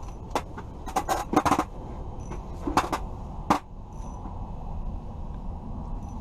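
Steady low rumble of strong wind on the ice-fishing shelter, with a handful of sharp clicks and knocks over it: one quick cluster about a second in, then single ones near three and three and a half seconds.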